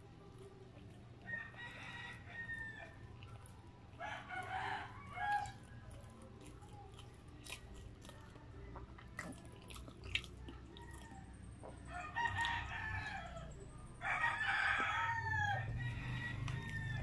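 Chickens calling, with a rooster crowing, in about four separate calls, the longest and loudest near the end, over soft chewing clicks and lip smacks.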